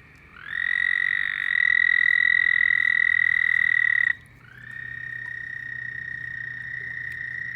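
Frogs calling at night: a long, steady, high-pitched trill that slides up as it starts, holds for about four seconds and stops abruptly. A second, quieter trill starts just after it and carries on.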